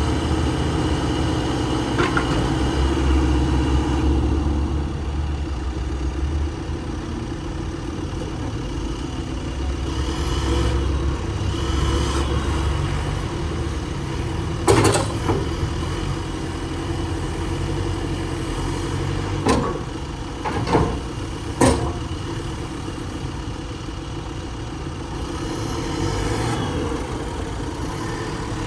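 JCB 3CX14 backhoe loader's diesel engine running steadily, its low rumble swelling for a few seconds near the start and again partway through. Four sharp knocks sound in the middle stretch.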